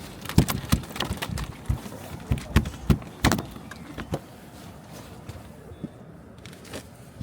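A rapid, irregular series of knocks and clatters, densest in the first four seconds and then sparser and quieter.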